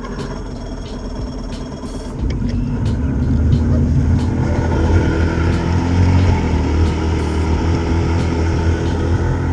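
1996 Johnson 40 HP two-stroke outboard motor running on a test run after a new stator was fitted to cure power loss. It picks up and runs louder about two seconds in, then holds steady.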